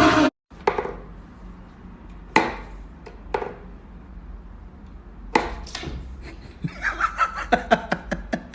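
Sharp knocks on a hard surface, a few single ones about a second apart, then a quick run of taps near the end, in a small room.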